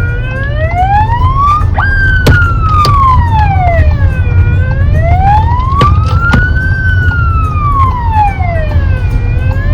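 A wailing siren, its pitch rising and falling slowly, about one full sweep every five seconds, over a steady low rumble, with a few sharp clicks.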